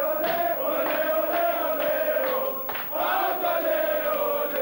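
A group of footballers singing a victory chant together, holding long notes in unison with slow rises and falls in pitch, with a few sharp claps or shouts.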